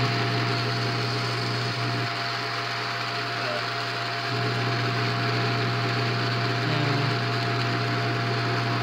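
Bell & Howell 8mm film projector running with its lamp switched on and no film threaded: a steady motor hum with a constant thin whine over it.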